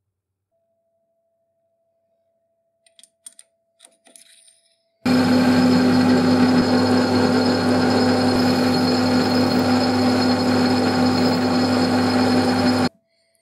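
A few faint clicks, then a metal lathe starts running about five seconds in: a steady machine hum with a constant whine while it cuts a small metal rod. It stops abruptly near the end.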